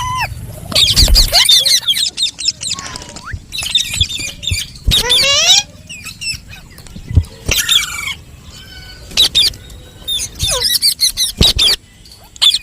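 Parrot calling: a string of short, high-pitched squawks and warbling chirps in bursts of about a second or less, with a couple of gliding whistles in between.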